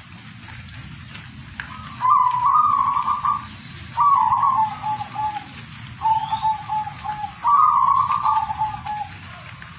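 Zebra dove (perkutut) cooing: four rolling coo phrases about one to one and a half seconds long, each a higher note that drops to a quick run of lower notes, the first starting about two seconds in.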